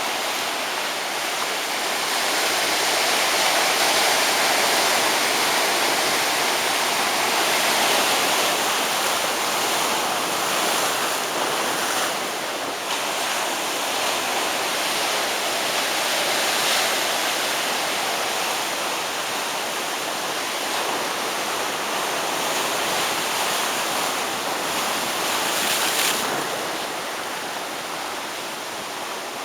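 Rough ocean surf breaking on a beach: a continuous rushing wash of crashing waves that swells and eases.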